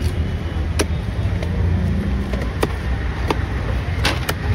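Knife blade chopping through a large snakehead fish onto a wooden chopping block: sharp, irregular knocks about once or twice a second. A steady low rumble runs underneath.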